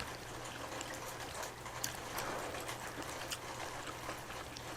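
Close-miked eating sounds: quiet chewing with scattered small wet clicks and smacks over a light steady hiss and a low hum.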